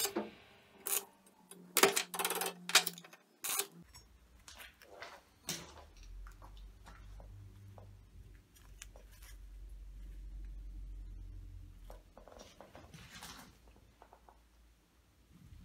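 Small metal parts clinking and knocking: several sharp taps in the first four seconds, then a faint low hum with scattered lighter knocks.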